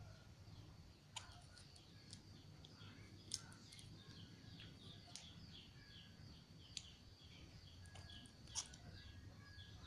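Faint, quick bird chirps repeating in the background, with a few sharp clicks.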